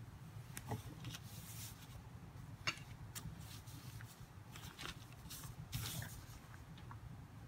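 Faint scratchy rustling of hands and a cloth moving over rice paper, with a few short sharp clicks, over a steady low hum.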